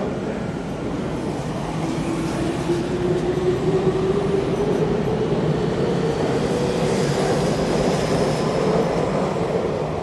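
Tokyu 5050-series (4000 subseries) electric train pulling out of the station and accelerating past the platform. The whine of its traction motors rises steadily in pitch over the rumble of the cars running on the rails.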